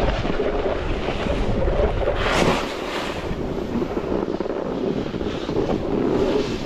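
Wind buffeting the microphone of a camera moving fast down a ski slope, over a steady hiss and scrape of edges sliding on packed snow. A louder hissing scrape about two seconds in, like an edge carving hard into the snow.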